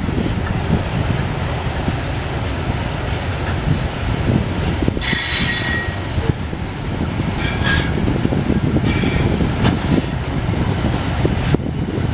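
Loaded iron-ore hopper wagons rolling past on the rails with a steady heavy rumble of wheels. From about five seconds in, the wheels squeal three times in short, high-pitched ringing bursts.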